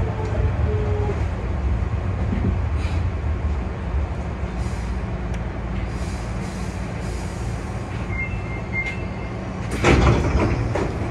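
Steady low hum of a Hankyu 8000 series train standing in a station, with no motor whine of acceleration. A short high beep sounds about eight seconds in, and a burst of clattering knocks about ten seconds in is the loudest moment.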